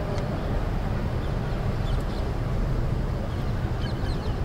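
Steady low outdoor background noise, with a few faint high chirps near the end.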